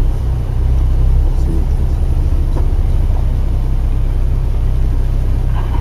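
Steady low rumble of a car driving, heard from inside the cabin through a dashcam microphone.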